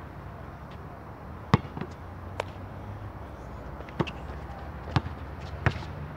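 A basketball bouncing on an outdoor court: a handful of sharp, unevenly spaced smacks, the loudest about a second and a half in, over steady low background noise.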